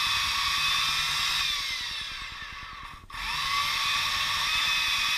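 Electric chainsaw running with a high whine as it cuts into a dead apricot tree trunk. About a second and a half in, its pitch and level sag. It stops for an instant about three seconds in, then spins back up to full speed.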